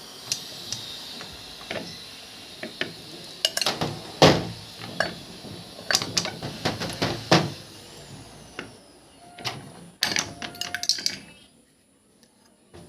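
Irregular clicks, knocks and clinks of a ceiling fan being taken apart by hand, its metal parts and screws handled, with the sharpest knock about four seconds in.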